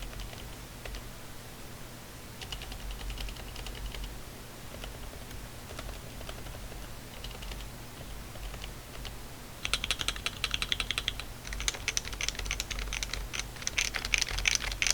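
Typing on a Realforce 87U Topre keyboard domeswapped with 45g HHKB domes, its case dampened with shelf liner. Short soft runs of keystrokes at first, then a fast, louder burst of continuous typing from about two-thirds of the way in.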